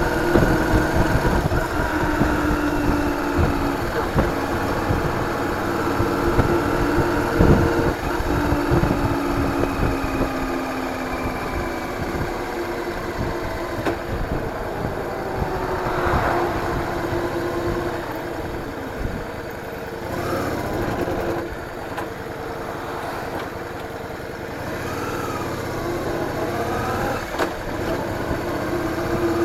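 Engine of a moving vehicle, heard from a vehicle-mounted action camera, running continuously with its pitch drifting up and down as speed changes. Low wind rumble on the microphone is heavier in the first half.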